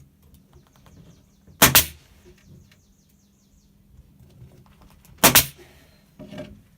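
Two loud, sharp bangs about three and a half seconds apart, then a softer knock near the end: work impacts on the door installation.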